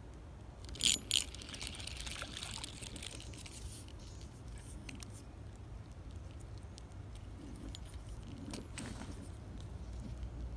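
A small sunfish being landed and unhooked by hand: two sharp clicking rattles about a second in, then a few seconds of rustling hiss, then soft clicks and handling noises with a brief rustle near the end.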